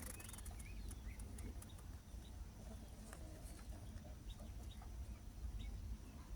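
Faint outdoor ambience: scattered short bird chirps and sharp clicks over a steady low rumble.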